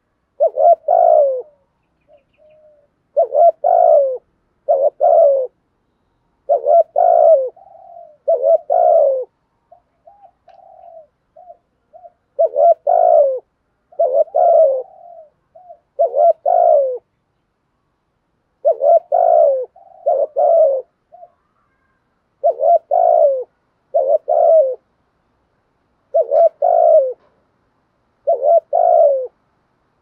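Spotted dove cooing: repeated low coos, mostly in pairs a second or so apart, with a pause of a few seconds between pairs. A few softer, shorter notes come in the middle.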